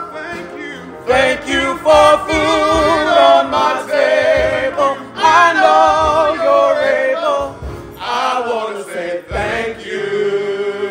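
Gospel choir singing a slow praise song with strong vibrato, settling on a long held note near the end.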